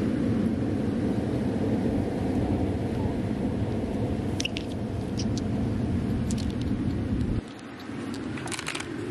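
Wind buffeting the microphone in a steady low rumble that drops away suddenly near the end, with a few light clicks and ticks as pieces of sea glass and pebbles are picked up from the sand.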